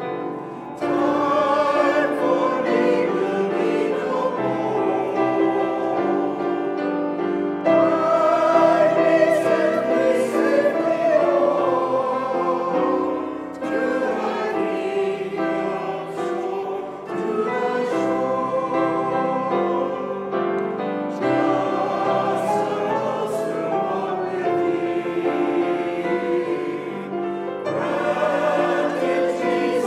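A choir singing a hymn in long sustained phrases, with short breaks between lines.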